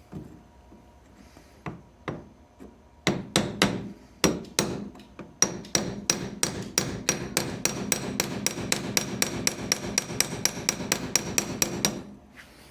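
Hammer tapping: a few scattered knocks, then sharp strikes that settle into a steady run of about four a second, stopping shortly before the end.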